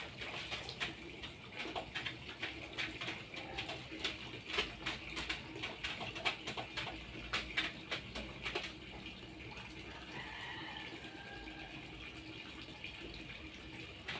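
Light clatter and splashing of plastic containers being washed by hand in a basin, with a bird cooing steadily behind; the clatter thins out after about nine seconds, when a faint higher bird call comes in.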